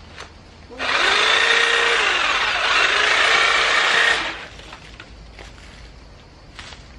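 Handheld power saw running for about three and a half seconds as it cuts through vines on a wall. Its motor whine dips twice under load, and it stops suddenly.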